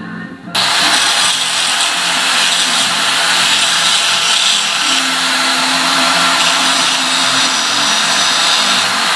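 Welding on a steel trike axle, fixing new wheel bolts to it: a loud, steady hiss with no clear pitch that starts abruptly about half a second in.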